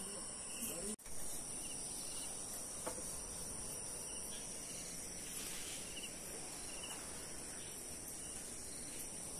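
Steady high-pitched chorus of insects, with faint short trills repeating now and then. The sound drops out for an instant about a second in.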